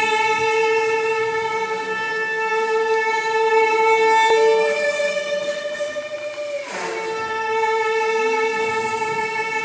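Music: a slow violin melody in long held notes, the pitch changing only twice.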